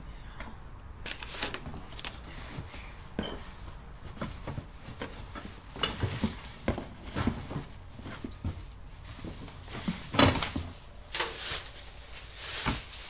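Unboxing a flat-packed rolling storage cart: parts clinking and knocking against each other as they are handled, with rustling and scraping of cardboard and packing material, busiest in the last few seconds.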